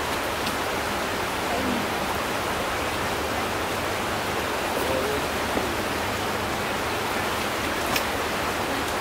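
Fast-flowing river rushing over shallow rapids, a steady, even rush of water.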